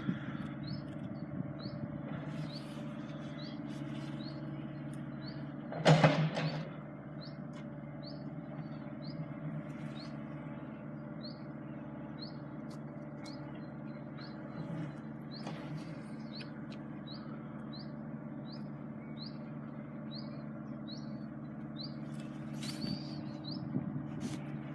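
A small bird chirping over and over, one short high chirp about every second, over a steady low hum. One loud knock sounds about six seconds in.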